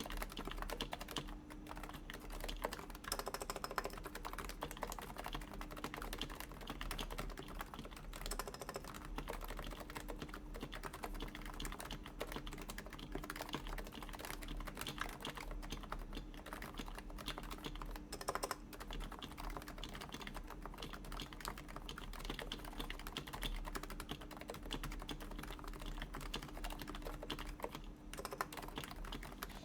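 Continuous typing on a Topre Realforce keyboard with lubed, silenced Topre switches and URSA PBT doubleshot keycaps: a steady stream of soft keystrokes, with a few louder strokes mixed in.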